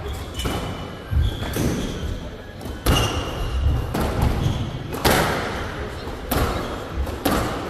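Squash rally: the ball is struck hard by rackets and smacks the walls, about one sharp hit every second or two, with short high squeaks in between.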